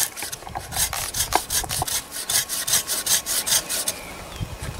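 Hand saw cutting through an olive tree's stem in quick, even back-and-forth strokes that stop about four seconds in: the rootstock being cut back for grafting.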